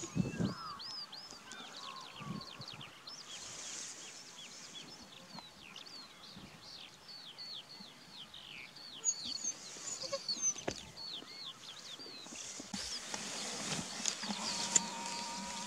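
Quiet open-pasture ambience: animals bleating, with many short, high chirping calls repeating a few times a second throughout. A steady low hum comes in near the end.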